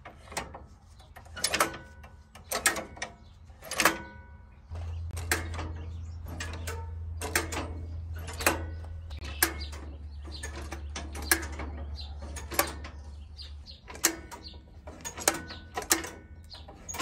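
Metal clicks and clanks, about one a second, some with a short metallic ring, from the throttle, governor and choke linkage of a 1954 Allis-Chalmers WD45 tractor being moved by hand.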